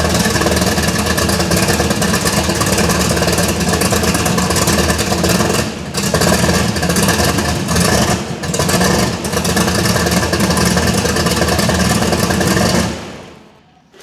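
Turbocharged, fuel-injected 350 small-block Chevy V8 running loud and unevenly at one of its first starts, its lumpy sound coming from a high-lift supercharger cam. It dips briefly twice, then stops near the end.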